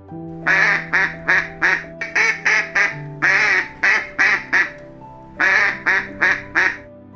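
A duck quacking in quick runs of about four to six quacks each, with short pauses between the runs, over soft background music.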